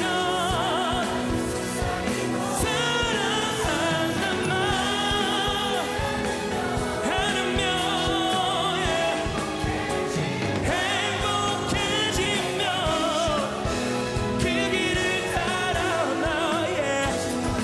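Live pop ballad with singing: a lead vocal with vibrato over a backing choir, a string section, piano and drums, playing continuously.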